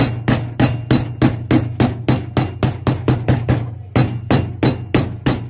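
Cobbler's hammer striking in a steady run, about three blows a second, each with a short metallic ring, while heel blocks are being fixed to a shoe.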